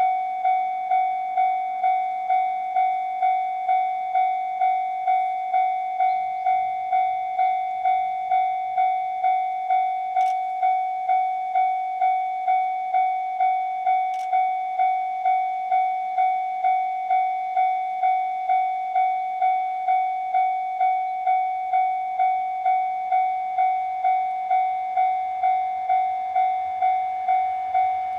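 Japanese railway level-crossing warning alarm ringing, an electronic ding repeating evenly about twice a second, signalling an approaching train. The low rumble of the approaching EH500 electric freight locomotive rises faintly near the end.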